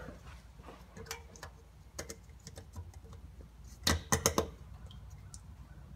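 Scattered light clicks and taps of a metal oil strainer screen being fitted up against the engine case of an air-cooled 1600cc VW Beetle, with a quick cluster of four or so louder clicks about four seconds in.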